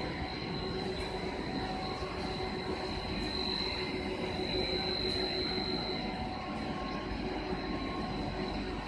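PET sheet extrusion line running: a steady machine drone with a constant high-pitched whine over it.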